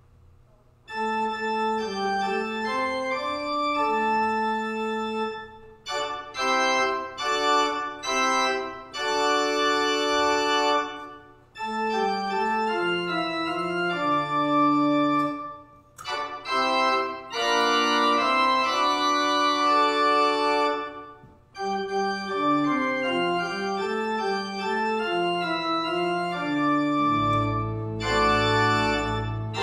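Church organ playing slow, sustained chords in phrases separated by short breaks. Near the end a deep bass note comes in under the chords and the sound fills out.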